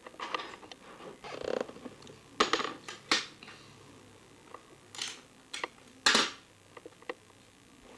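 Hands handling paper and a cellophane bag: a series of short crinkling rustles and light clicks, loudest around three seconds in and again about six seconds in.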